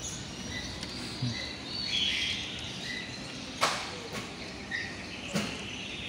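Small birds chirping and twittering in short high calls, with two sharp knocks, one past the middle and one near the end.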